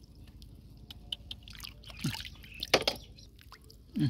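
Wet drips, plops and small clicks from waterlogged mud and shells as freshwater clams are picked out of a muddy bank by hand. The clicks come irregularly, the loudest about three-quarters of the way through.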